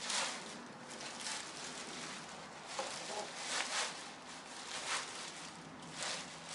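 Thin green plastic wrapping film crinkling and rustling in irregular bursts as it is pulled off a plastic fender flare.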